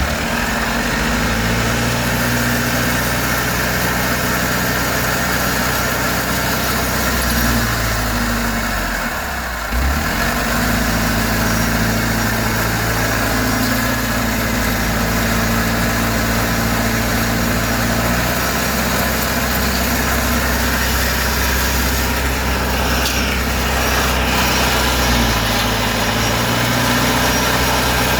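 Kubota DC70 combine harvester's diesel engine running without pause, its pitch shifting up and down several times as throttle or load changes, with a brief dip about nine seconds in.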